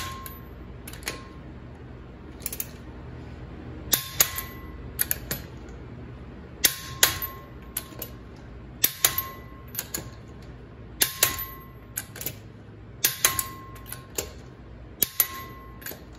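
Click-type torque wrench clicking as each lug nut reaches the 108 ft-lb setting: sharp metallic clicks with a brief ring, in groups of two or three about every two seconds.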